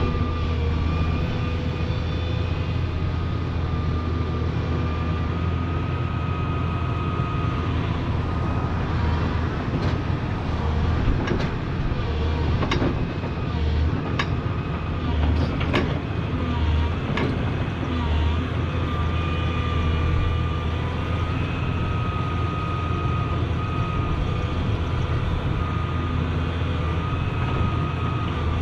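Volvo crawler excavator's diesel engine running steadily under work, with a high whine that wavers in pitch as the boom and bucket move. A series of sharp knocks comes in the middle.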